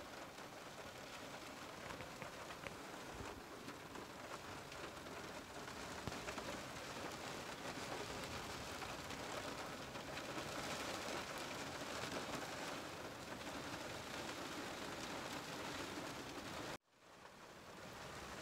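Steady rain falling on the car, heard from inside it. The sound cuts out abruptly near the end and fades back in.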